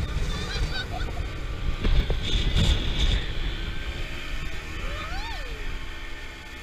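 Wind buffeting the camera's microphone and water rushing and hissing as a towed banana boat skims across the sea, with short high cries from the riders and one rising-then-falling whoop about five seconds in.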